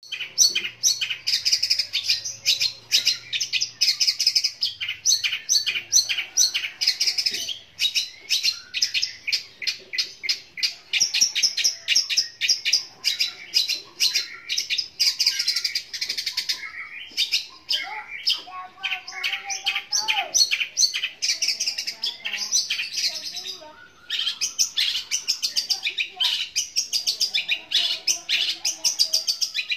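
Caged long-tailed shrike (cendet) singing loudly and at length: a fast, unbroken chatter of harsh notes mimicking the scolding of fighting Eurasian tree sparrows. The run pauses briefly three times.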